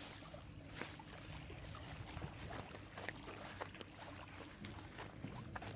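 Steady low wind rumble on the microphone over open water, with faint scattered ticks.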